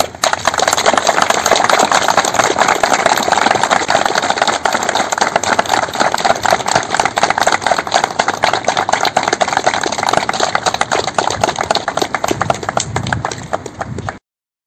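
A group of people applauding, a steady dense clapping that cuts off suddenly near the end.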